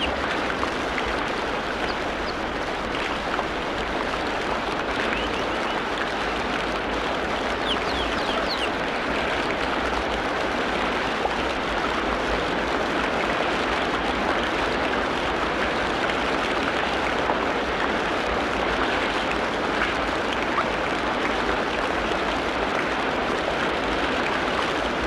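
Forest ambience: a steady, even rushing hiss, with a few faint, short, high bird chirps, most of them about eight seconds in.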